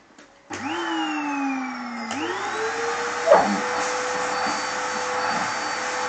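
Vacuum cleaner switched on about half a second in, its hose nozzle drawing through a malamute's thick coat: a steady rushing hiss with a motor whine that slides down in pitch, then jumps up about two seconds in and holds steady. A brief sharp sound about three seconds in.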